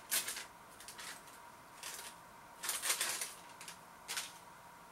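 A spoon scraping and clinking against a bowl as a thick vegetable curry is stirred and served, in five or six short, separate scrapes.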